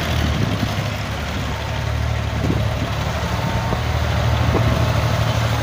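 Diesel tractor engines running steadily under load as the tractors pull rear blades through loose sand.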